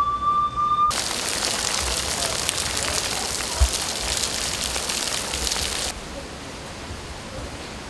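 A held musical note stops about a second in, and steady rain takes over. The rain cuts off sharply about six seconds in, leaving a fainter hiss. A single low thump sounds near the middle.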